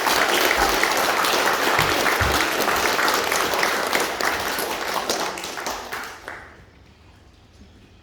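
An audience of children and adults applauding in a school hall, fading out about six and a half seconds in.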